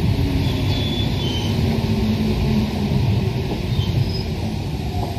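Rubber-tyred Paris Métro Line 1 train running at speed, heard from on board: a steady low rumble, with a few faint, brief high squeals about a second in.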